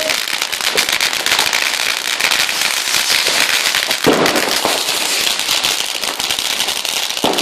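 New Year's fireworks and firecrackers going off all around in a continuous dense crackling of many small bangs, with a couple of louder bangs about four seconds in and near the end.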